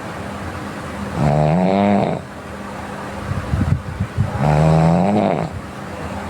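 A sleeping person snoring in a steady rhythm. Two long snores, each a droning tone that rises slightly in pitch and lasts about a second, come about a second in and again about four and a half seconds in. A rough, fluttering breath falls between them.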